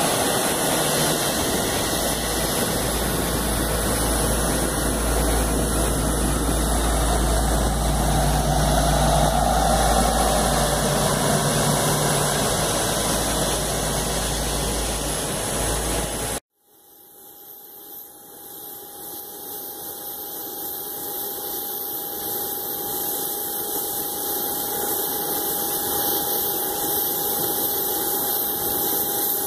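Turbofan engines of a Boeing 777-200 airliner running as it taxis past, a steady loud rumble with hiss. After an abrupt cut about halfway through, a different twin-engine jet airliner's engines come in: a steady whine with a high whistle, growing louder as it taxis closer.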